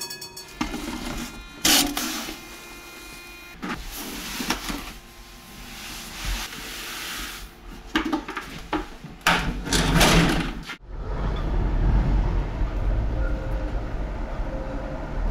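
Tatra T6A2 tram sounds cut together: a steady high tone and several loud mechanical bursts and clatters, then, after a sudden cut about eleven seconds in, the tram running with a steady low rumble.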